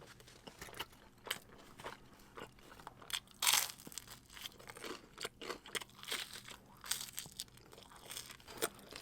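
Close-up eating of Margherita pizza: irregular crunchy bites and chewing, with one louder crunch about three and a half seconds in.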